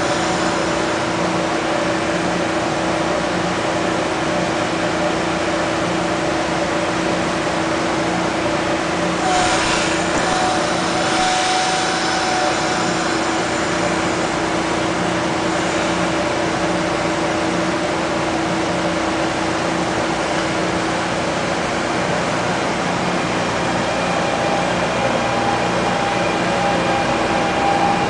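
NJ Transit Arrow III electric multiple-unit cars rolling slowly past at low speed: a steady electric hum with blower noise and wheels on rail. About ten seconds in there is a brief stretch of higher-pitched hiss and squeal.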